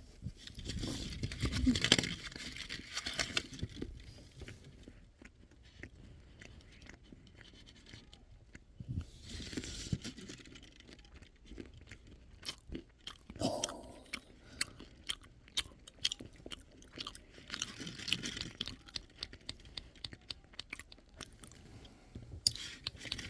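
Close-up chewing and crunching of almond chocolates for eating ASMR, with irregular crisp cracks and clicks as the nuts and chocolate are bitten and chewed.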